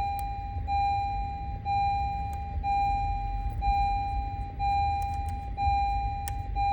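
Electronic warning tone from the car, a steady mid-pitched beep that sounds for about a second and breaks briefly, repeating about once a second, over a low rumble with a couple of faint clicks.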